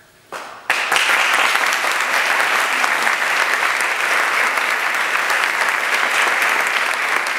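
Audience applauding: a few first claps a moment in, then full, steady applause from just under a second in.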